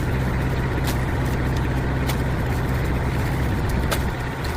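Engine idling steadily with a low, even hum; a few faint clicks sound over it.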